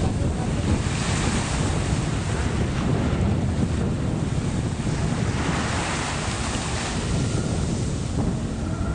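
Wind buffeting the microphone, a steady gusting rumble of noise, with the sea's surf mixed in.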